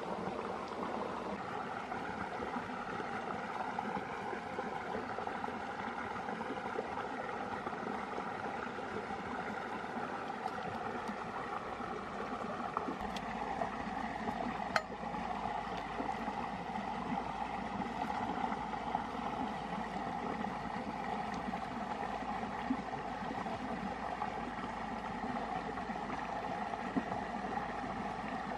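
Shallow stream running over rocks, a steady babbling of water. A single sharp click sounds about halfway through.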